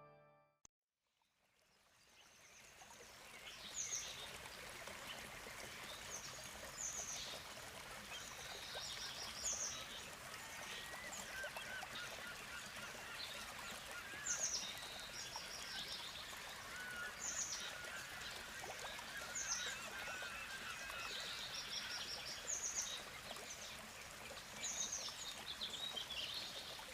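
Birds calling outdoors: short high calls repeated every couple of seconds, with fainter warbling lower down, over a steady hiss. It fades in after about two seconds of near silence.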